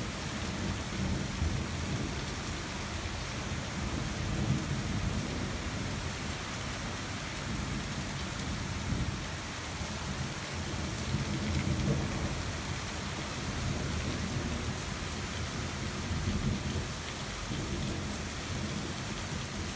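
Steady rain falling during a thunderstorm, with low rumbles of thunder swelling and fading several times.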